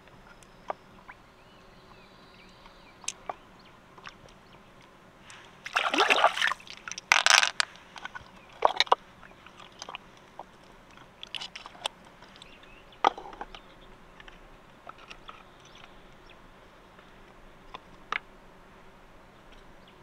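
Wet squelching and sloshing as fingers work through the soft flesh of a large freshwater mussel, loudest for a couple of seconds near the middle, with scattered small clicks.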